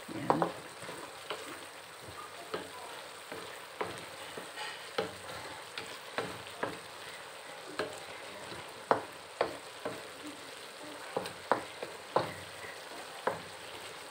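Wooden spatula stirring julienned jicama in a wok, with irregular sharp knocks and scrapes against the pan roughly once a second over a steady sizzle of the last of the sauce cooking down.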